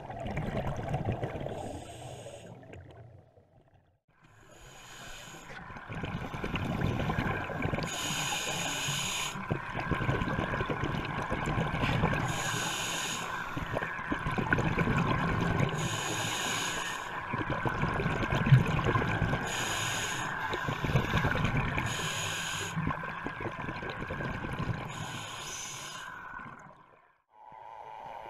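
A scuba diver breathing through a regulator, heard underwater: a hissing inhalation every three to four seconds, between them the rumbling gurgle of exhaled bubbles. The sound drops out to near silence twice, briefly.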